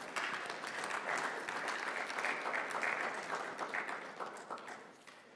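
Congregation applauding, a dense patter of clapping that dies away near the end.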